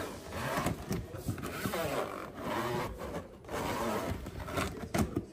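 Polypropylene plastic shoe-box drawers being slid in and out of their plastic frames: repeated plastic scraping and rubbing, with a sharp clack near the end.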